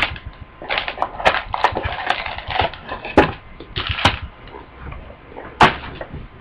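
Cardboard and pack wrappers of a trading-card box rustling and crinkling as it is handled and opened, with irregular sharp clicks and a louder knock near the end.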